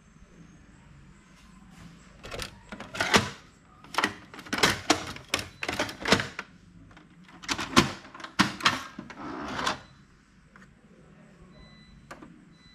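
Plastic clacks, clicks and knocks of an HP LaserJet Pro MFP M428dw laser printer's front tray and door being folded and opened by hand: a quick run of sharp knocks and rattles starting about two seconds in and lasting about eight seconds.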